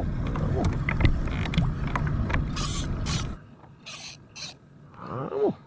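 Fishing reel being cranked while fighting a fish on a bent rod, its gears and handle rattling and clicking, stopping suddenly about three and a half seconds in.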